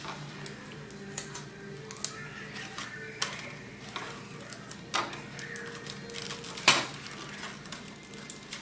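Paper and tape being handled and worked on a table: scattered light taps, crinkles and clicks, the sharpest a single snap about seven seconds in.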